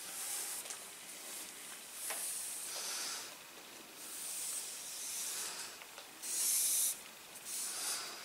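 Cotton macramé yarn pulled through the hands and around a ring, making a series of short swishing hisses of cord sliding against skin and cord, one pull louder than the rest late on.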